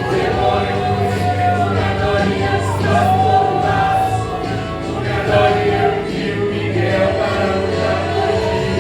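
Gospel song: voices singing a held, gliding melody over steady instrumental backing.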